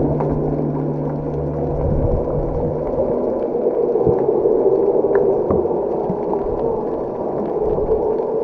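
Boat under way: a steady rushing noise, with a low engine hum that fades out two or three seconds in.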